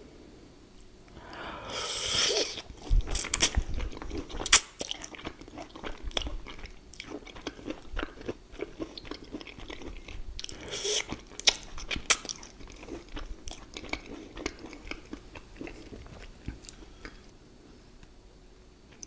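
Close-miked eating: biting and chewing with many small crunches and mouth clicks. There are two longer, louder stretches, about two seconds in and about eleven seconds in.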